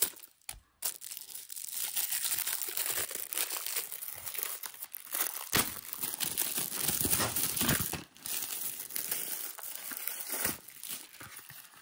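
Shiny metallic gift wrap crinkling and tearing as it is ripped off a small box by hand, in a continuous crackle with a brief pause near two-thirds of the way through.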